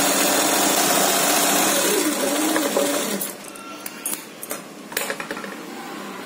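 Sewing machine running as it stitches fabric, its pitch rising and falling with speed, stopping about three seconds in. A few soft clicks and cloth-handling rustles follow.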